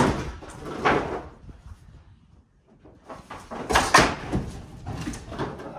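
Wooden knocks and clattering as old roof boards are worked loose and pulled from the rafters, in separate bangs with the loudest around four seconds in.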